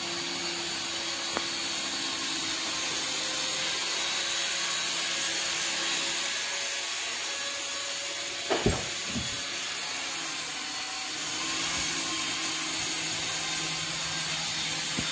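Steady whirring machine noise with a faint low hum; two short knocks about eight and a half seconds in.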